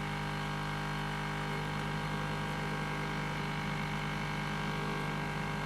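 Hot-air rework station blowing steadily, a constant rushing air with a steady motor hum, while it heats a flash chip on a router board to desolder it.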